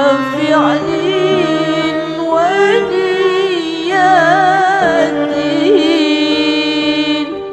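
Devotional music in an Arabic style: a slow, ornamented melody that wavers and glides in pitch over sustained held notes.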